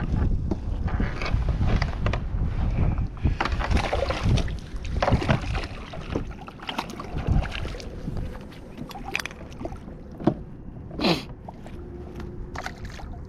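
Wind buffeting the microphone over water slapping against a kayak hull, with irregular knocks and splashes from gear and the fish being handled in the boat.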